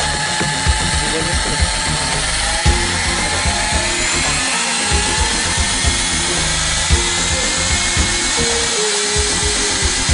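Euroboor ECO.32-T magnetic drill running under load while drilling: a steady, loud, noisy whine with tones that slowly drift in pitch, and small knocks now and then.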